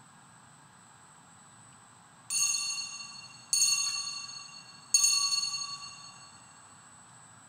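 Altar bell struck three times, about a second and a half apart, each ring fading before the next strike, marking the priest's communion at Mass.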